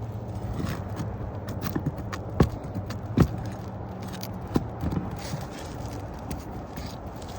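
Metal roofing tool knocking and scraping against asphalt shingles, with several sharp clacks, the loudest about two and three seconds in, over a steady low hum.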